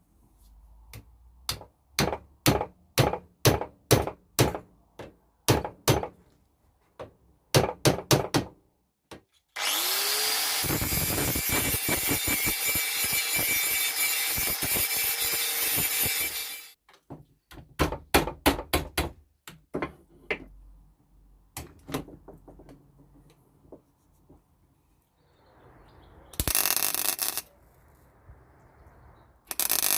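Workshop tool work: a run of sharp knocks, about two a second, then a power tool running loudly for about seven seconds with a rising whine as it starts. More knocks follow, then two short bursts of the power tool near the end.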